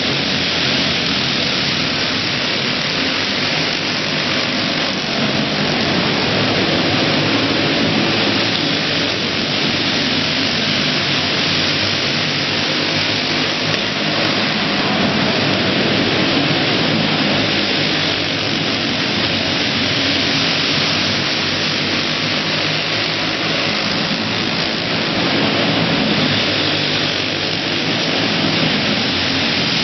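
Several racing go-karts' small engines running hard around an indoor track, heard as a loud, steady, dense din inside a large hall. It swells and eases slightly as the karts come round.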